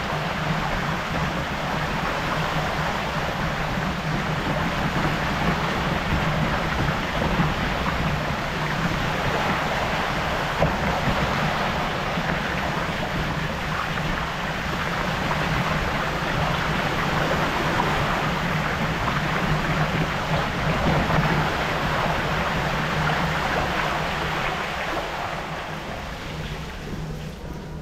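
Steady rushing noise of a mountain bike being ridden through a partly flooded tunnel: tyres running over wet ground and shallow water, with wind on the microphone. It eases off near the end.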